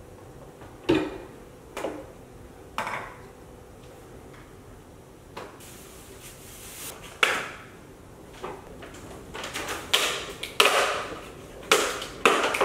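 Kitchen handling sounds: a few hard knocks as a plastic blender jar is set onto its base, then plastic produce bags rustling and plastic clamshell containers clicking and crinkling as they are opened, the crinkling and clicks loudest near the end.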